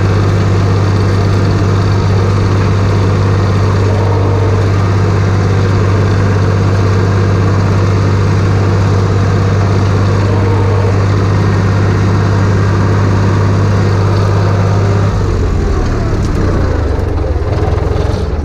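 Farm tractor engine running steadily while the tractor drives across a tilled field towing a harrow. About fifteen seconds in, the engine note drops lower and turns uneven as it slows.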